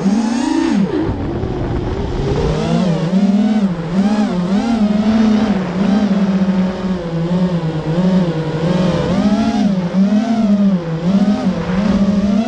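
Electric motor whine from a racing quadcopter's four Hobbywing X-Rotor 2204 2300kv brushless motors, heard through the onboard camera. The pitch dips about a second in, then warbles rapidly up and down with quick throttle changes.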